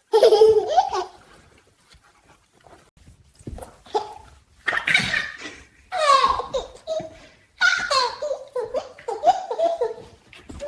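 A baby laughing in repeated high-pitched bursts, with short pauses between them.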